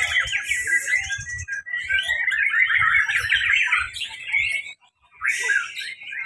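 Several caged white-rumped shamas (murai batu) singing at once: a dense, rapid run of varied whistles and chatters, with a brief gap about five seconds in.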